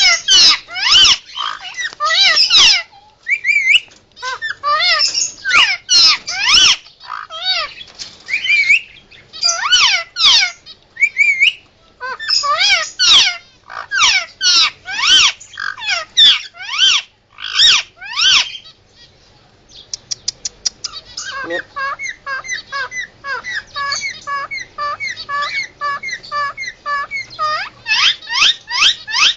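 Indian ringneck parakeet giving loud alarm calls: bouts of rapid, sharp, screeching calls with short pauses between them. About twenty seconds in comes a quick rattling run and then a stretch of lower, softer repeated calls, before the loud calls start again near the end.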